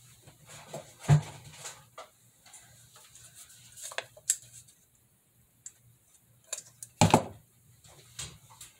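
Kitchen handling noises: items and containers knocked and set down on a countertop, a scatter of clicks and knocks with two louder thumps, about a second in and about seven seconds in.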